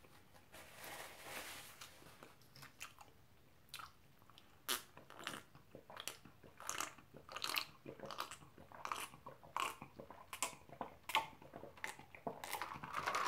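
A person drinking cold water from a cup in a string of gulps, each swallow a short wet click heard close to the microphone, about one every half second to second. A soft rustle comes near the start, before the gulping.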